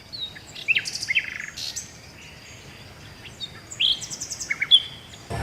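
Wild birds chirping and calling: short, high chirps and quick runs of repeated notes, in two busy spells, one in the first second and a half and another around four to five seconds in.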